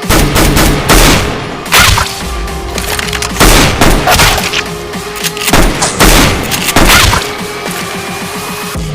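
Shots fired in quick bursts, loud bangs coming every second or so, over background music.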